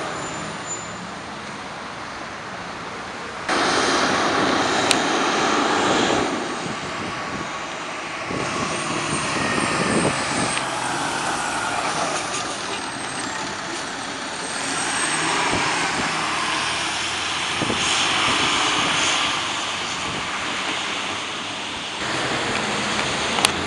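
Road traffic: a fire ladder truck and cars driving past on wet pavement, a diesel engine and tyre hiss, with no siren. The sound jumps abruptly a few times.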